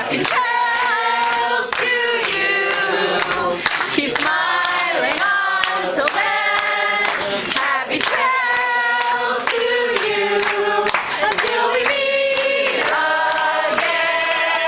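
A group of people singing together, several voices at once, with hands clapping along in time.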